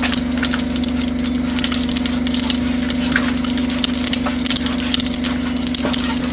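An engine running steadily at a constant pitch, with scattered light clicks and clinks over it.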